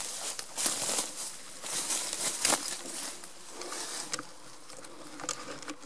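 Footsteps crunching and rustling through dry leaf litter, in irregular crunches, with a faint steady buzz underneath.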